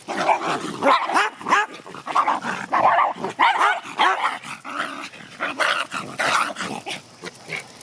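Small Bichon dogs barking and growling as they play-fight. A rapid string of short, pitched calls follows one after another with barely a pause.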